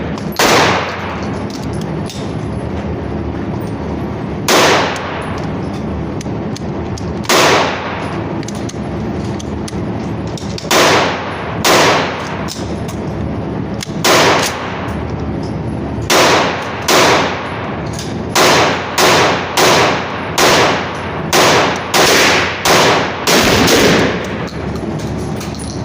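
AR-15 rifle in .223/5.56 firing single semi-automatic shots, each with a ringing echo: a few shots several seconds apart at first, then a quicker string of roughly one to two shots a second through the second half.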